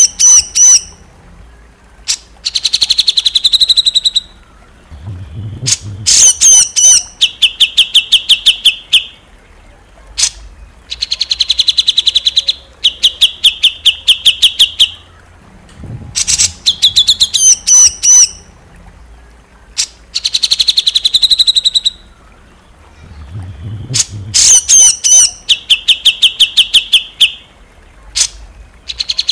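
Songbird tutor recording: a loud songbird repeating phrases of rapid, sharp staccato 'shot' notes and high rattling trills, with short pauses between phrases. The same sequence loops about every 17 seconds.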